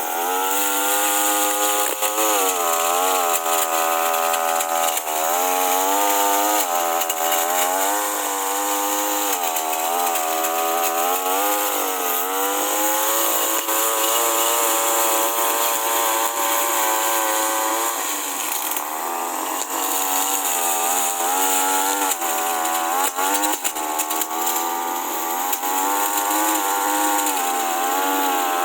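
Push lawn mower's engine running while cutting grass, its pitch repeatedly sagging and picking back up as it works through the grass.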